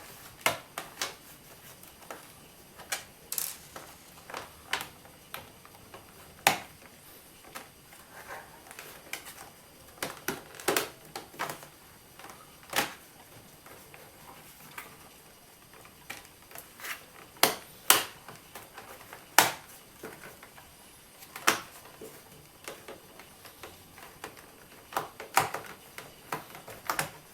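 Irregular sharp clicks and light knocks of the Acer Aspire 5680 laptop's plastic and metal parts being handled and fitted back together during reassembly.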